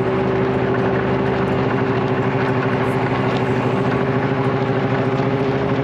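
Snowmobile engine running at a steady speed on the move, a constant drone that holds one pitch throughout.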